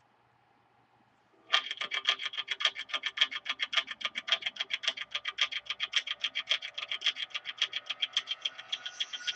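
Rapid, evenly spaced sharp clicking, about seven or eight clicks a second, starting about a second and a half in.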